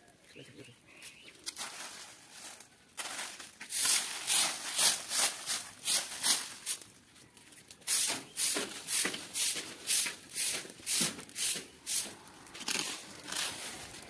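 Dry fallen leaves in a freshly lit leaf pile rustling and crackling in quick, even bursts, two or three a second, starting about three seconds in.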